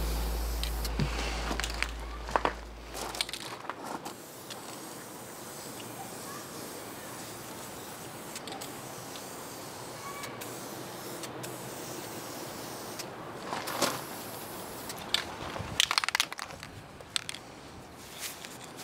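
Aerosol spray-paint can hissing steadily as black paint is sprayed onto an outboard lower unit, with a few sharp clicks and knocks from handling the can and part near the end. Background music fades out over the first few seconds.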